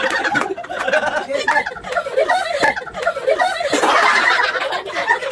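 A group of people laughing together, with excited voices over it.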